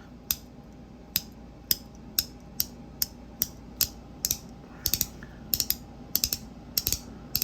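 Magnetic fidget donut being snapped repeatedly in the hand: sharp clicks about twice a second, some in quick pairs, as its magnets pull the parts together with a strong snap.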